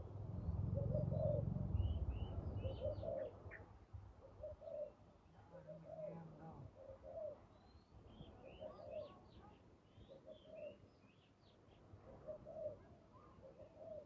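Spotted doves cooing in repeated low phrases, with small birds chirping high and quick in short clusters. A low rumble, the loudest sound, fills the first two seconds.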